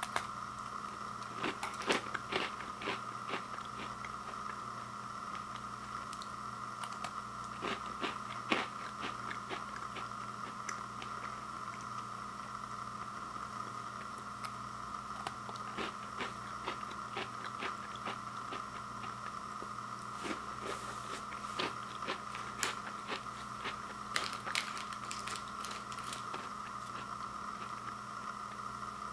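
A thin crispy chocolate sandwich cookie (Oreo Thins) being bitten and chewed: crisp crunching that comes in clusters with pauses between, over a steady background hiss.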